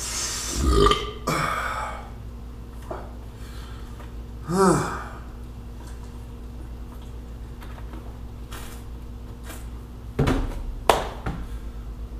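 A man burping and blowing out hard breaths, in a few separate bouts: at the start, about halfway, and again near the end. He has just eaten a raw Trinidad scorpion pepper.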